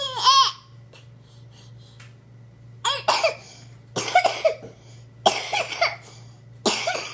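A 13-month-old baby gives a short whimper, then coughs four times, about a second and a half apart.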